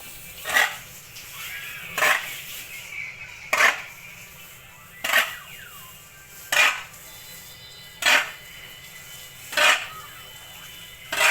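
Short scraping strokes repeated evenly about every one and a half seconds, eight in all, with faint chirps between them.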